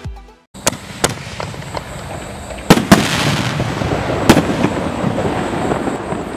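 Illyrian Pyro Double Eagle canister artillery shells firing and bursting in the air: a string of sharp bangs, the loudest a pair about three seconds in and another a second and a half later, with a steady noisy hiss of the bursts between them.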